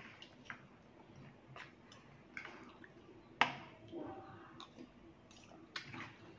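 Metal fork and spoon tossing soft rice noodles through thin curry on a plate: faint wet squishing with scattered light clinks, the sharpest about three and a half seconds in.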